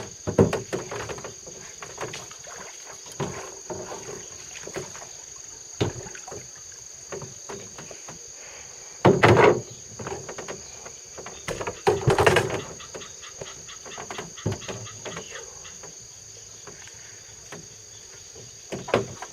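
Insects singing in a steady high drone, over scattered knocks and clunks, with two louder rustling bursts about nine and twelve seconds in.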